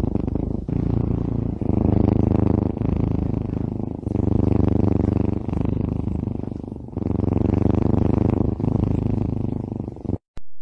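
Kitten purring steadily while its belly is brushed, the purr swelling and easing in long cycles of one to three seconds with its breathing.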